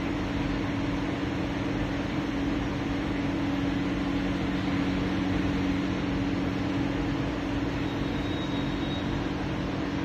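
Steady mechanical hum: a constant low drone over an even hiss, like a motor or fan running, with no change in level.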